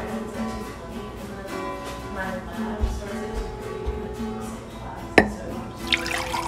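Guitar music playing steadily, with a sharp click a little over five seconds in.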